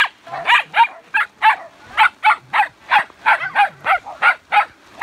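Small dog barking over and over in short, high-pitched yaps, about three a second, in an even run.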